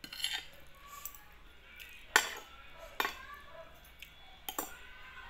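Metal spoon and fork clinking and scraping against a plate, a few sharp clinks with the loudest a little over two seconds in.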